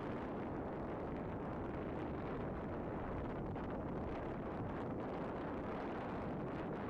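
Steady wind noise rumbling on the camera microphone, with no clear hoofbeats standing out.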